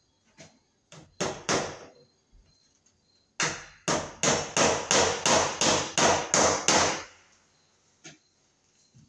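Hammer blows driving cable staples into a wooden wall stud to fasten electrical cable: two strikes about a second in, then a quick, even run of about ten strikes at roughly three a second.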